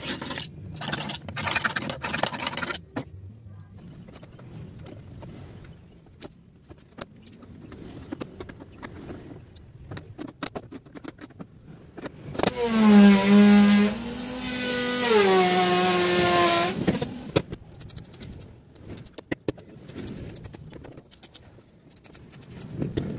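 Rapid rasping strokes of hand filing on the door panel, then scattered light taps, then a motor running for about four seconds with a loud whine that steps in pitch and drops before it stops.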